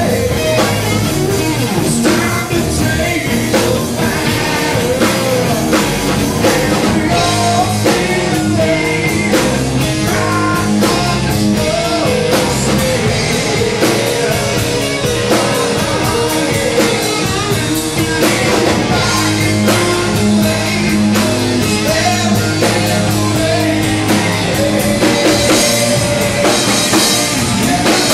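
Rock band playing: electric guitar and drum kit, with singing.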